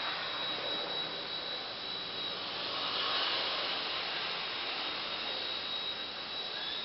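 WLtoys V977 mini RC helicopter running: a steady high-pitched whine from its small electric motor and spinning rotor over a rushing blade noise, swelling slightly about three seconds in.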